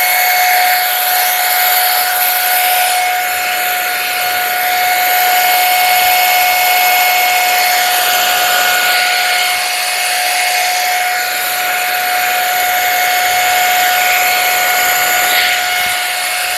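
Pro Hot hot air brush running on her hair: a steady high motor whine over the rush of blown air, held without a break.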